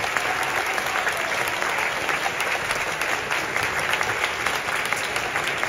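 Audience applauding steadily: many hands clapping in a large hall.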